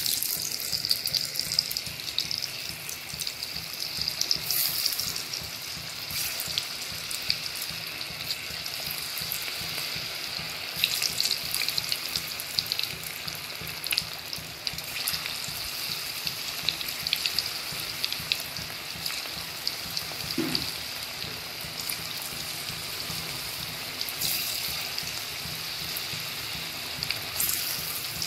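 Batter-coated cauliflower pieces deep-frying in a kadai of hot oil: a steady sizzle with fine crackling pops, starting abruptly as the batch goes in.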